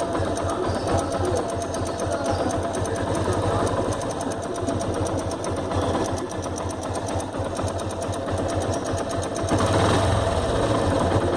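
Yamaha FZ motorcycle engine running with a rapid, steady metallic 'kit kit' ticking over the engine note, which the owner suspects is the timing chain. The engine grows louder near the end.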